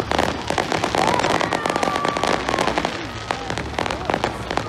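Fireworks going off in quick succession: a dense run of crackling and popping bangs from low bursts and ground-level fountains.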